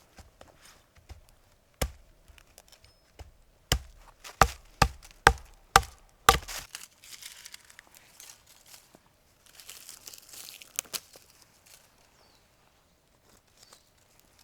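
A run of about seven sharp chopping strikes, most about two a second, followed by rustling and scraping.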